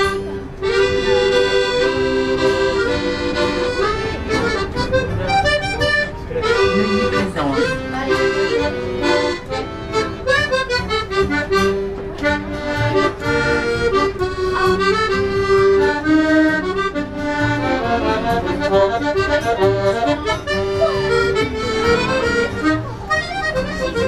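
Piano accordion playing a tune: a melody of changing notes over a steadily held chord.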